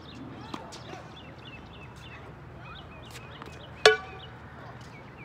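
A tennis ball struck with a frying pan: one sharp metallic clang with a short ring, nearly four seconds in.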